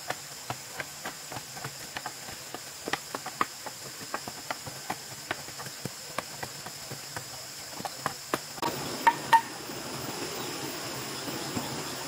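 Bamboo poles tamping soil around the base of bamboo gate posts: a run of sharp knocks about three a second, over a steady high buzz of insects. A little past halfway the knocking stops, and two louder knocks with a short ring follow.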